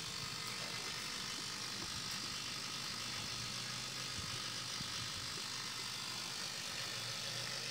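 Steady, even background hiss with no distinct sound event.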